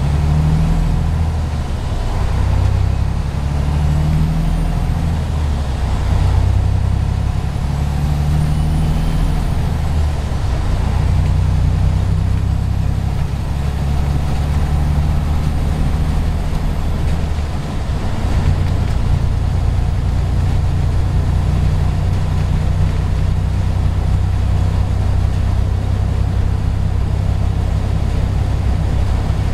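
Heavy truck's Mercedes diesel engine heard from inside the cab, pulling steadily as the loaded tractor-trailer accelerates. A brief dip in the engine note about two-thirds of the way through marks an upshift by the Eaton UltraShift automated transmission.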